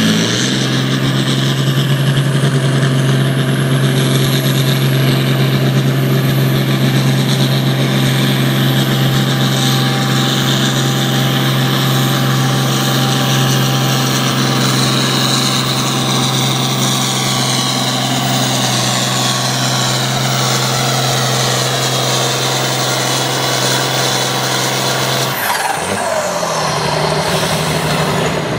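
Turbocharged International Harvester farm tractor's diesel engine running hard at steady high revs under the load of a pulling sled, with a high whine that slowly falls in pitch. Near the end the sound breaks off briefly and the engine comes back.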